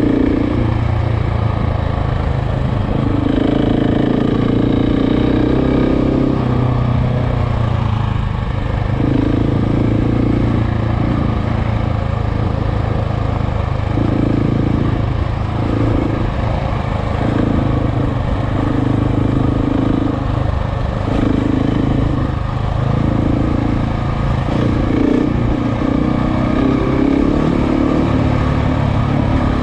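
KTM motorcycle engine running under way on a trail ride. Its note swells and drops every second or so with the throttle.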